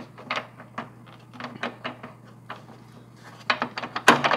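Scattered metallic clicks and knocks of a bolt and parts being fitted by hand under a lawn tractor's frame, coming thicker and louder near the end.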